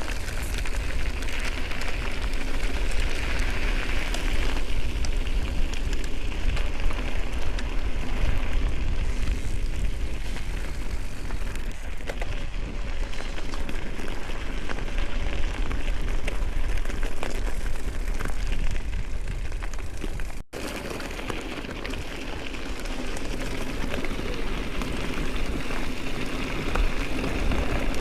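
Ride noise from a Transition electric mountain bike on a dirt trail: wind rushing over the microphone and knobby tyres rolling over loose dirt, steady throughout, with a sudden break about twenty seconds in.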